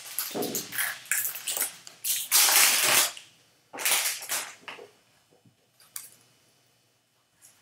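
Silvery foil wrapper of a baseball card pack crinkling and tearing as it is ripped open by hand, loudest about two to three seconds in, with a shorter burst about a second later. After that come a few faint clicks as the stack of cards is handled.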